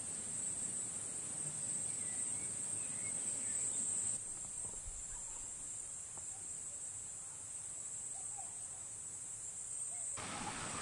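Steady high-pitched chorus of stridulating insects in summer vegetation. It drops a little about four seconds in, and a louder rushing noise joins near the end.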